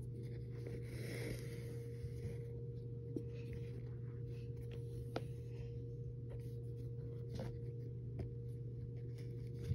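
Faint scratchy rustling of a shoelace being pulled and threaded through the eyelets of a Vans Old Skool sneaker, with a few light ticks, over a steady low hum.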